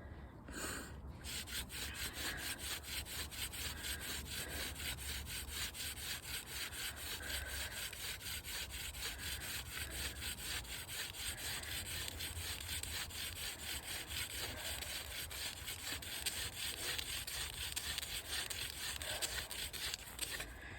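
Friction-fire hand drill: a wooden spindle spun back and forth between the palms, grinding in its socket on a wooden hearth board. It is a fast, even run of rubbing strokes that starts about a second in and keeps going almost to the end.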